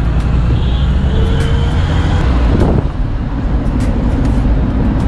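Steady low rumble of a motor vehicle driving on the road.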